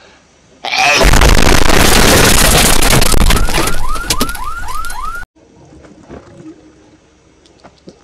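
Extremely loud, distorted meme sound-effect blast, heavily overdriven, that bursts in suddenly. It ends in a run of rising, siren-like chirps, about three a second, then cuts off abruptly.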